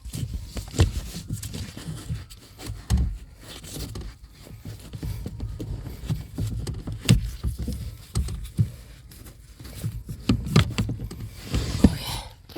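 Irregular metal clinks, knocks and scrapes from steering-rack parts being handled and fitted by hand, the loudest knocks about seven seconds in and near the end.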